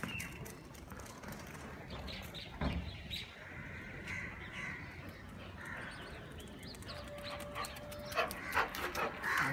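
A dog making short, high-pitched sounds throughout, with a thump about two and a half seconds in and a busier run of sounds near the end.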